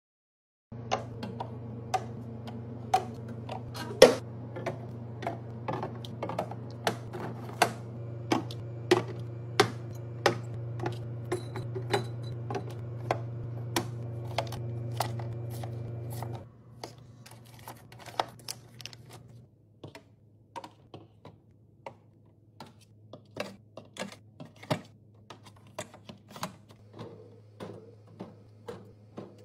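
Rapid, irregular clicks and clacks of kitchen containers and items being handled and set down while restocking, over a steady low hum. The hum drops abruptly about 16 seconds in, and the clicks turn quieter after that.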